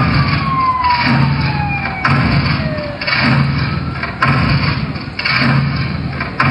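A siren winds down, falling steadily in pitch and fading out about three seconds in. Under it are loud rhythmic beats about once a second.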